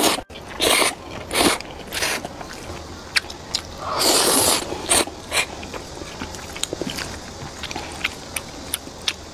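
Close-miked eating of spicy fried instant noodles with cheese and rice cakes: a few sharp bites and crunches in the first two seconds, a longer noisy rush about four seconds in, then soft, wet chewing clicks.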